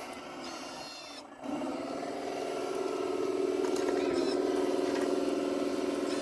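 Motor and hydraulic drive of an RC model construction machine running with a steady whine, dropping away briefly about a second in, then picking up again and growing slightly louder.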